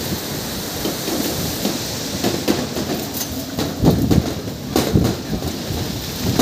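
Strong gusting wind of a dust storm buffeting the microphone: a heavy, uneven low rumble that swells in gusts, loudest about four and five seconds in.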